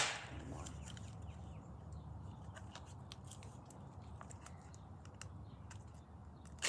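Hands opening a Mini Brands plastic capsule and its wrapping: a sharp snap at the start, then faint, scattered crinkling and small clicks of plastic.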